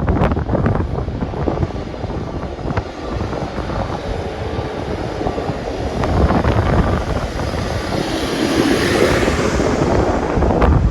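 Wind buffeting the microphone, with a rushing sound that swells from about six seconds in and peaks near the end.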